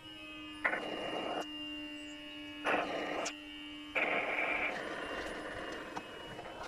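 Small electric honey-suction pump running with a steady hum while its thin tube draws honey out of opened stingless bee honey pots. Three rushes of hissing, slurping suction come as air is drawn through the tube: one about a second in, a short one around three seconds, and a longer one near the end.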